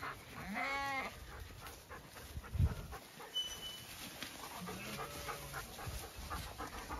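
A Zwartbles ewe bleats once, a short call that rises and falls, about half a second in; a fainter, lower bleat follows around five seconds in, with a few soft thumps between.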